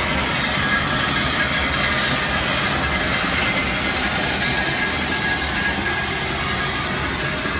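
Mount Washington Cog Railway steam locomotive working as it pushes its coach along the rack track, a steady mix of steam hiss and rapid exhaust noise.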